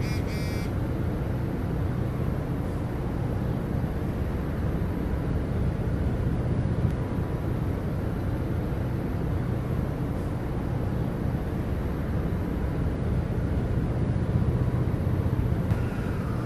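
A steady low rumble with a faint hum under it, holding even throughout. A brief run of high electronic tones sounds right at the start.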